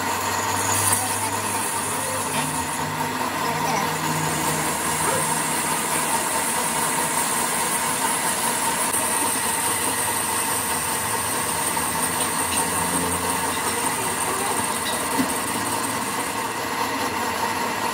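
Metal lathe running steadily while its cutting tool turns the face of a steel flanged ring. A constant machine hum is overlaid by a thin, high whine from the cut.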